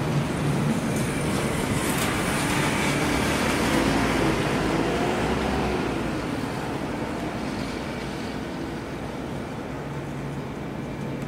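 Kawasaki T-4 jet aircraft passing overhead: a broad, steady jet roar that fades away over the second half.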